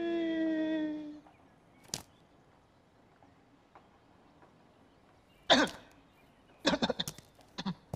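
A man's long, held vocal sound, falling slightly in pitch, lasting about a second, followed by a faint click and then a few short, sharp vocal sounds in quick succession near the end.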